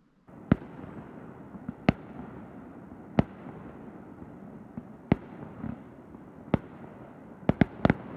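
Aerial fireworks going off: single sharp bangs every one to two seconds, then three in quick succession near the end, over a steady background hiss.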